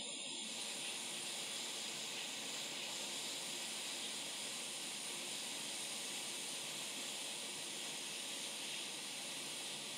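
Hot air rework station blowing a steady hiss onto a laptop motherboard MOSFET, heating its solder to lift the chip off. The hiss grows fuller about half a second in.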